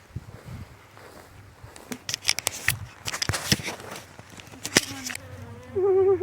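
Honeybees buzzing around an open hive, with one bee coming close to the microphone near the end in a loud, wavering buzz. Before that, a run of sharp clicks and scrapes.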